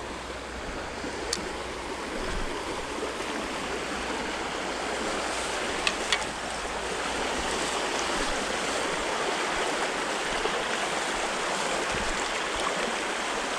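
Creek water running steadily over shallows and riffles, a constant rushing that grows a little louder over the span, with a few light clicks on top.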